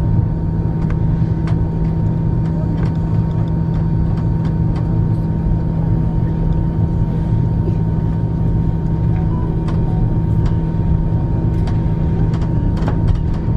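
Airbus A340-300 cabin during taxi: the engines at taxi idle give a steady low drone with a constant hum and a thin high tone. Light ticks and rattles come now and then.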